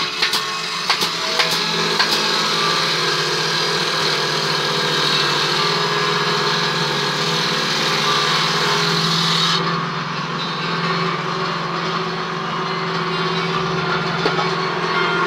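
A machine's motor running steadily with a low hum and a hiss over it, with a few light knocks in the first two seconds. The high hiss drops away suddenly about ten seconds in.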